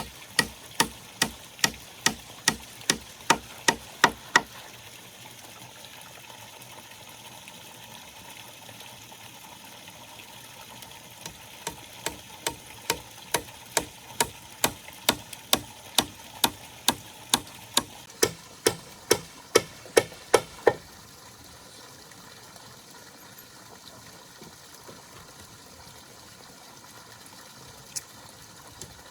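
Repeated sharp blows of a hand tool striking in a steady rhythm, about two and a half a second. One run lasts a few seconds at the start, a second longer run comes in the middle, and a single blow falls near the end.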